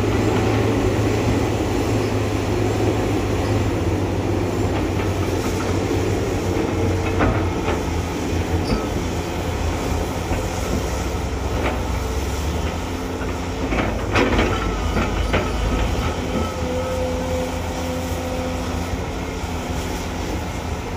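Heavy diesel earthmoving machinery working: a large crawler excavator's engine and hydraulics running with a steady low drone, with a few sharp knocks, the loudest about 14 seconds in.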